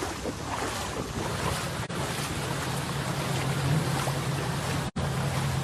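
Storm wind and rough water: a steady rushing noise with wind buffeting the microphone, and a low steady hum underneath from about a second and a half in. The sound drops out briefly about two seconds in and again near the end.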